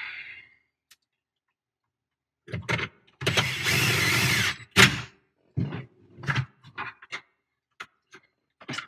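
Cordless drill/driver running for about a second and a half as it turns a screw in the truck's dash bracket, with a few short blips before it. A sharp click follows, then several brief bursts of clatter.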